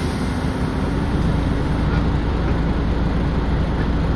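Nissan Diesel Space Runner RP city bus's diesel engine idling at a stop, heard from inside the passenger cabin as a steady low rumble with a faint hum.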